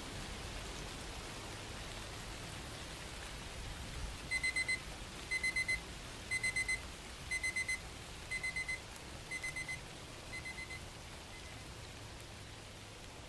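Digital timer alarm beeping in quick groups of four high beeps, about one group a second, eight groups in all, fading toward the end, over steady rain. It signals the end of a 25-minute pomodoro focus session.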